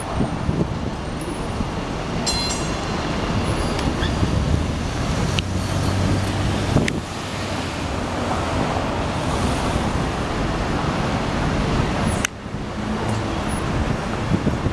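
Busy city street traffic: cars driving past close by with steady engine and tyre noise.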